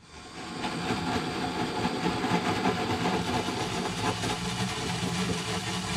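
Cordless drill running steadily as it drills into a plastic lawn-tractor fuel tank, a dense whirring noise that builds up over the first second.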